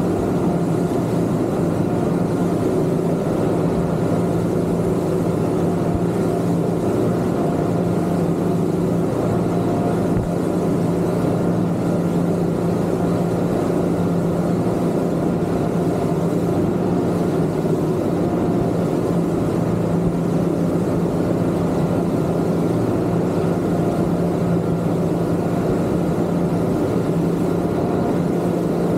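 Twin Yamaha 250 outboard motors on a Kingfisher 3025 GFX boat running under way, holding one steady pitch over an even rush of noise.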